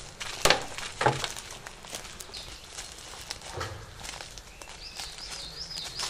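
Footsteps and scuffing on stony forest ground, with a few sharp knocks in the first couple of seconds. A small bird gives a quick series of repeated chirps near the end.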